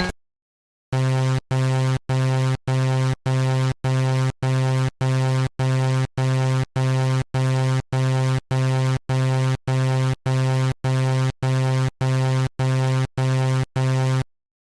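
Level-crossing warning alarm from a cartoon: one buzzy electronic tone pulsing evenly, nearly twice a second, about twenty times. It starts about a second in and stops shortly before the end.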